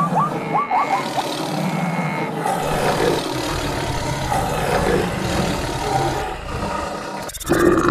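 Animal stampede sound effects: a dense rumble mixed with roars and other animal calls. It opens with a quick run of short rising calls, and a louder call comes in near the end.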